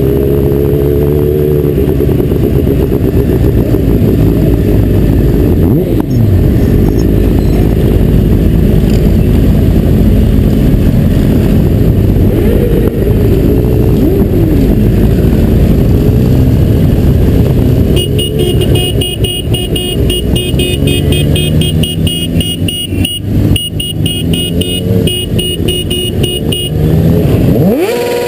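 Motorcycles riding in a group, heard from a helmet camera: a heavy rush of wind and road noise, with engines rising and falling in pitch as they speed up and slow down. In the last third a rapid, high, evenly repeating chirping runs for several seconds.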